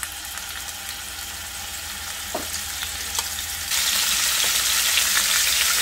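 Mackerel steaks sizzling as they pan-fry in olive oil, a steady frying hiss with a few light clicks, growing suddenly louder about four seconds in.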